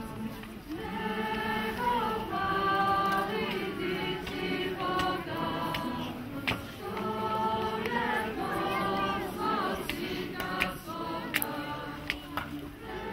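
A choir singing a melody in long held notes.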